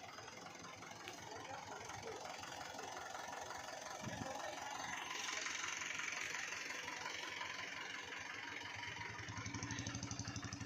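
An engine running steadily. A hiss comes in about five seconds in, and an even, rhythmic chugging starts near the end.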